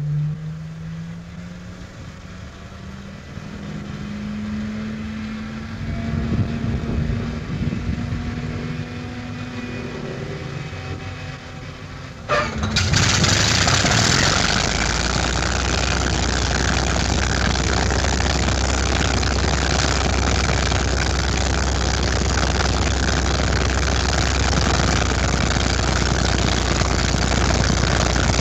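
Heinkel He 111 bomber's inertia starter winding up with a rising whine that levels off. About twelve seconds in, the engine catches suddenly and runs on steadily and loud.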